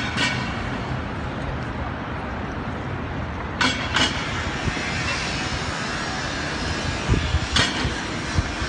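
Little Ben clock striking noon: a sharp, short strike, each one a quick double hit, three times about four seconds apart, over a steady hum of city traffic.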